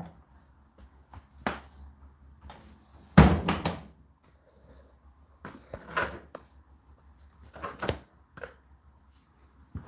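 Indesit IDC8T3 condenser tumble dryer running, with irregular knocks and thuds from laundry tumbling in the drum over a steady low hum. The loudest thud comes about three seconds in.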